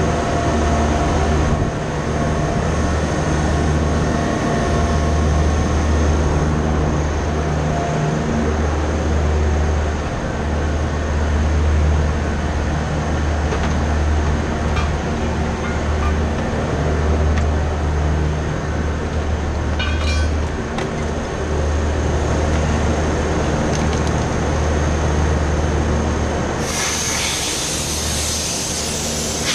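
Steady low mechanical drone of running machinery, swelling and easing every few seconds, with a few faint steady tones over it. A loud hiss joins near the end.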